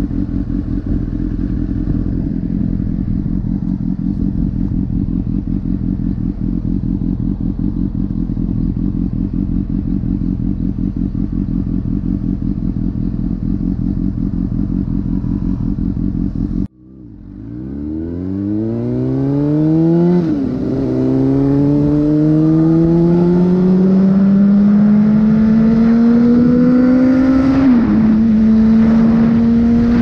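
Honda CBR600RR's inline-four engine running steadily at low revs. About two-thirds of the way through the sound breaks off sharply, then the engine revs up under acceleration, its pitch climbing and dropping twice at upshifts.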